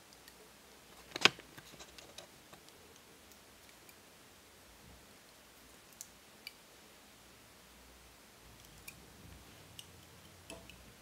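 Faint handling clicks and ticks as insulating tape is wrapped tightly around a rewound pickup coil bobbin: one sharper click about a second in, then a few scattered light ticks.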